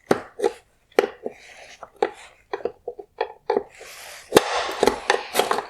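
Plastic clicks and knocks as a wire harness connector is unclipped and pushed through a Porsche Panamera LED headlight housing, with a longer scraping rustle about four seconds in.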